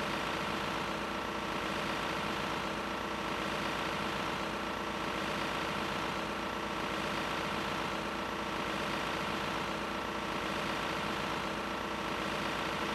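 An engine idling steadily: a constant hum with several steady tones and no change in level.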